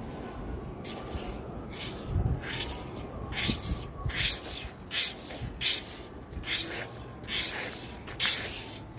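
Leaf rake dragged over the lawn in repeated strokes, its tines scraping through grass and loose soil to spread top-dressing dirt. The strokes become louder and more regular about a third of the way in, coming a little faster than one a second.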